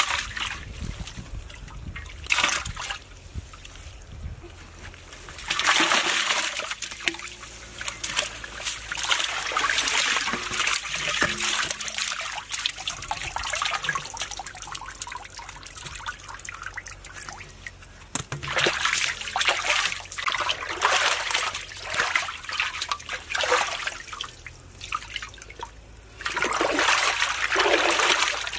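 Raw chicken pieces being washed by hand in a large aluminium pot of water: irregular splashing and sloshing as hands stir and rub the meat, with water trickling between the splashes.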